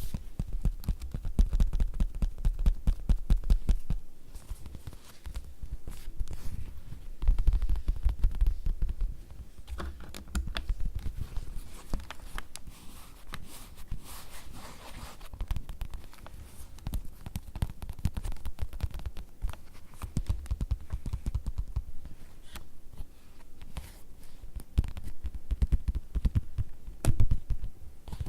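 Fingertips tapping rapidly on leather, a dense run of soft taps with dull low thumps, heavier in stretches and lighter in others.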